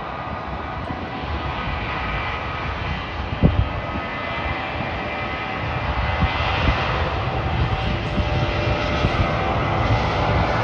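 Boeing 737 jet engines running with a faint whine as the airliner rolls down the runway, the engine noise growing louder about halfway through. A couple of brief knocks sound about a third of the way in.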